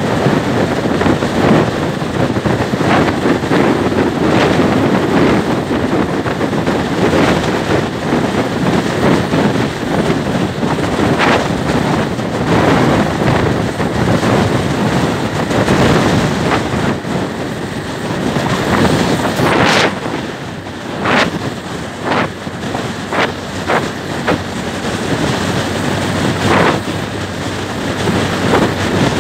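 Wind rushing over the microphone of a moving Suzuki scooter, a loud, steady rumble with several sharper gusts in the second half.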